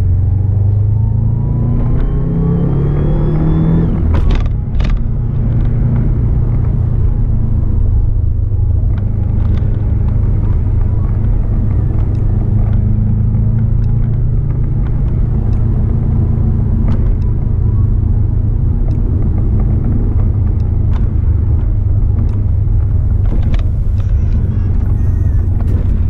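Subaru Impreza WRX's turbocharged flat-four engine and road noise heard from inside the cabin while driving. The engine note rises over the first four seconds or so, breaks at a gear change, then holds steady at cruising speed.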